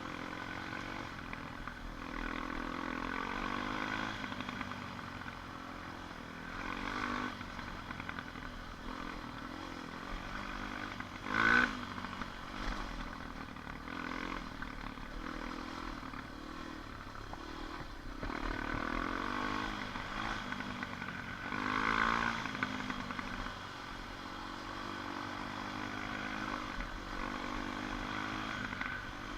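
ATV engine running along a trail, its pitch rising and falling as the throttle is opened and eased off several times. A brief loud burst stands out about 11 seconds in, and another rise comes about 22 seconds in.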